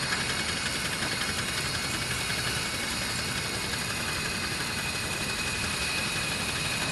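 5-inch gauge live-steam model of a NSW 38 class Pacific locomotive standing still, giving off a steady hiss of steam with a faint high whistle-like tone and a fine, fast flutter.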